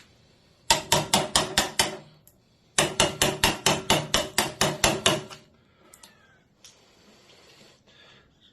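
A wood chisel being struck in quick, even blows, about six a second, as it chops out the waste of a half-lap joint. The blows come in two runs, the second about twice as long as the first.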